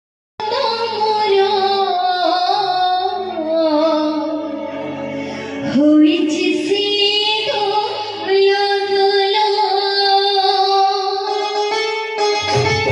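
A woman singing an Odia devotional song (bhajan) into a microphone, starting about half a second in and holding long notes later on. Instrumental accompaniment holds steady low notes beneath her voice.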